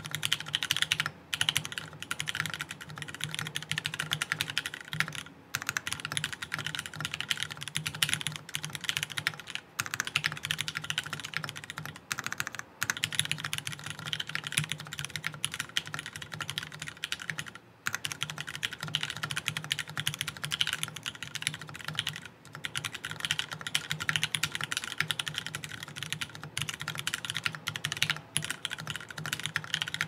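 Fast, continuous typing on an Amano V3 prototype mechanical keyboard: full aluminum case with burger mount, 2023 Nixie switches lubed on the stem, and GMK keycaps. A dense run of keystrokes is broken by a few short pauses.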